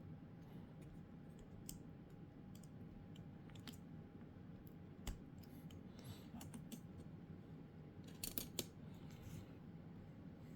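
Faint scattered clicks and taps of small plastic parts being handled, with one sharper click about halfway and a quick run of three louder clicks near the end.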